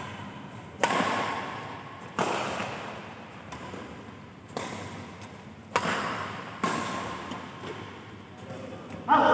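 Badminton rackets striking the shuttlecock back and forth in a singles rally: six sharp smacks one to two and a half seconds apart, each ringing out in the echoing hall.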